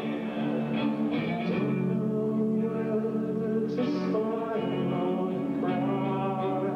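Live rock band playing: sustained singing over electric guitar and band, with a dull sound lacking treble.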